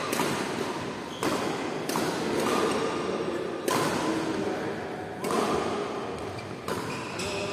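Badminton racquets striking a shuttlecock: a string of sharp smacks at irregular intervals of roughly one to two seconds, each ringing briefly in a large sports hall.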